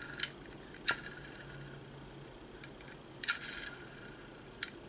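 Shimmed spur and sector gears of an airsoft gearbox turned by hand in the metal shell. Very quiet: a faint low whir with a few light metallic clicks. The quietness is the sign of good shimming, with only the gear teeth meeting and no rubbing or knocking.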